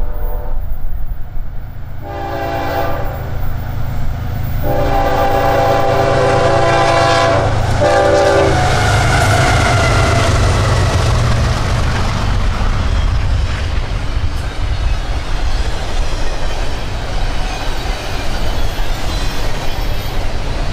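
CSX freight train's multi-note locomotive horn sounding for a grade crossing: a long blast ends just at the start, then a short blast and a final long one. The locomotives then pass close by with a falling engine tone, followed by the steady noise of freight car wheels on the rails.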